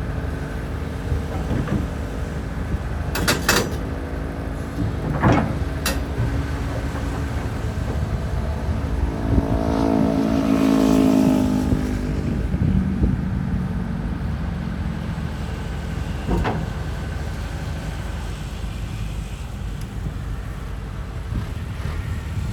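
Heavy diesel machinery running steadily, with a few sharp knocks; about halfway through a louder engine note swells and then falls away.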